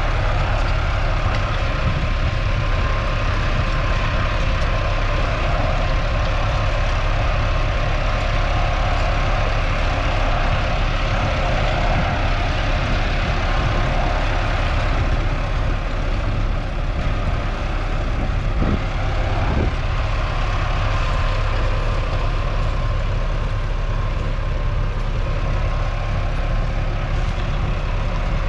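Massey Ferguson 3060's 4.1-litre four-cylinder diesel engine running steadily under load while it pulls a four-furrow plough through the soil.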